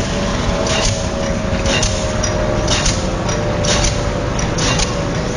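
Pile-driving hammer striking a concrete sheet pile about once a second, over a steady machinery drone.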